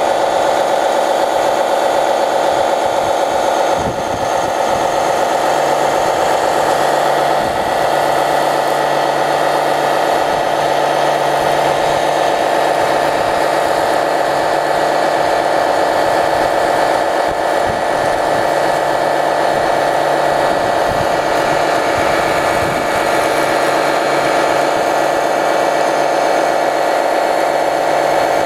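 Small electric pump on a model fire truck running steadily, a constant whining hum, as it pumps foam onto a building.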